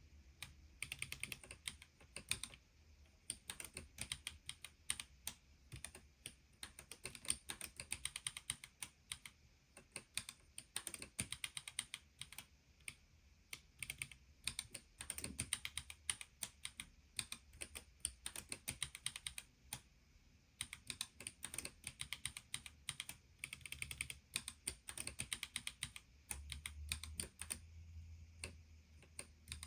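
Typing on a split ergonomic keyboard: quick runs of key clicks in bursts, with brief pauses between them.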